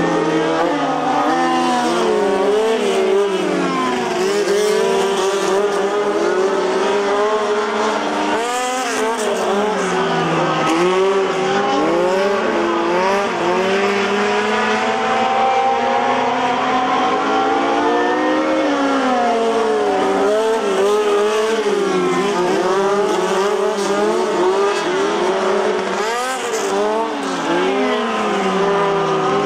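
Several midget race car engines revving, their pitch rising and falling over and over as the cars accelerate and lift off around the track, with more than one engine heard at once.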